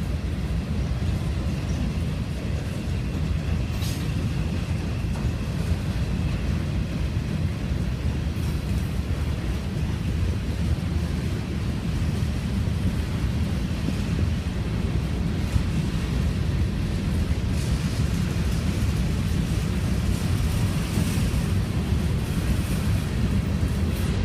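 CSX freight train's boxcars and covered hopper cars rolling past: a steady rumble of steel wheels on rail.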